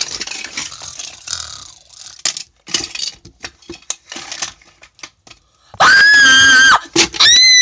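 Rustling and handling noises, then two loud, high-pitched screams near the end: a steady one about a second long, then a shorter one that rises in pitch.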